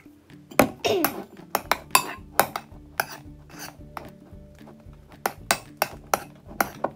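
A metal spoon clinking and scraping against a ceramic bowl while stirring a thick shaving-cream slime mix. The clicks start about half a second in and come a few times a second. This is the stage where contact lens solution is being worked in to activate the slime.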